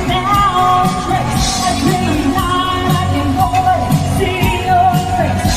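Background music: a pop song with a singer over a band with a steady beat.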